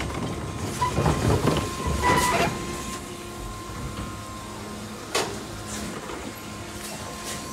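Electric side-loading garbage truck working: a series of metal clanks and knocks, most of them in the first two and a half seconds and one more about five seconds in, over a steady electric hum and whine.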